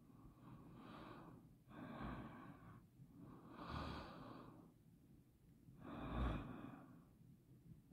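Faint breathing close to the microphone: four slow breaths.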